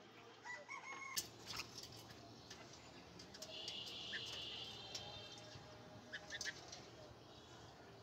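A small flock of red-vented bulbuls feeding on rice: short chirps, wing flutters and sharp taps, with a harsher call of about a second near the middle.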